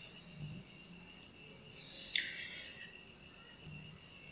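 Insects chirping steadily in the background, with one short falling chirp about two seconds in.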